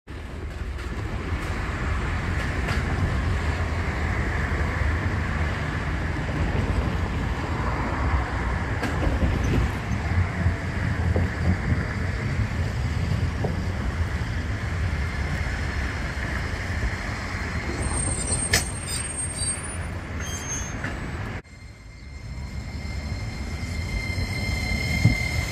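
Steady road traffic on a multi-lane road beside a tram line, with a city tram approaching along the tracks and a few brief high squeaks and clicks about three-quarters of the way through. It cuts off abruptly, then a tram is heard at a stop with a steady high whine near the end.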